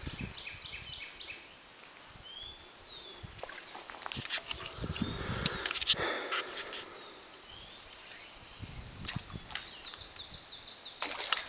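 Birds chirping and calling in short rising and falling notes, with a quick series of chirps near the end, over a steady thin high whine. A brief rustle builds around the middle and ends in a single sharp click.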